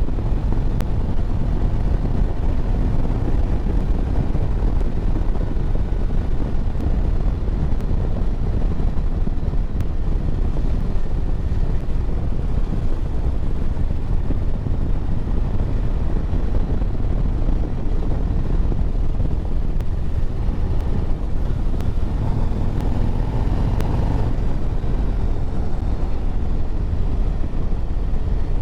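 Steady wind rushing over the microphone on a motorcycle at road speed, with the 2024 Harley-Davidson Road Glide running underneath; a faint engine tone rises briefly about three-quarters of the way through.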